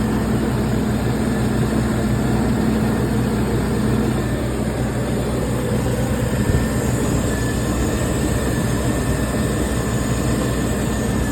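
1998 Land Rover Discovery 1's 4.0 V8 running steadily. It still has a misfire on cylinder one, though the owner says it doesn't really sound like it is misfiring.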